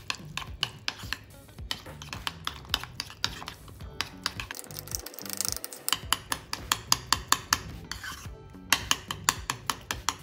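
Metal spoon stirring thick tzatziki in a glazed ceramic crock, clinking and scraping against the sides about three times a second, with a softer scraping stretch in the middle.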